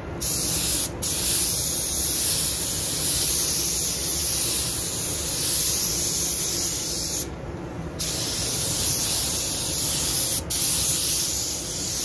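Air-atomising paint spray gun hissing steadily as it sprays a clear blending binder, with the trigger released for under a second a little after seven seconds in and brief cut-offs near the start and about ten and a half seconds in.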